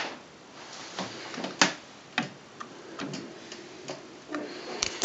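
Scattered light clicks and knocks at irregular intervals, with a few sharper ones near the end: handling noise from the camera and the plastic projector being moved around.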